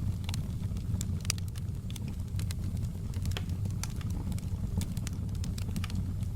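Wood fire in a fireplace crackling, with frequent sharp, irregular pops and snaps over a steady low rumble.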